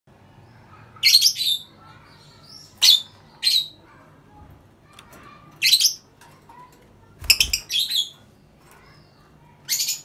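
Caged lovebirds giving shrill, squawky chirps in short bursts, about six times, with quiet gaps between them.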